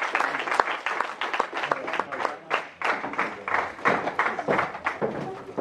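Audience applause, dense at first and thinning to scattered claps from about halfway through.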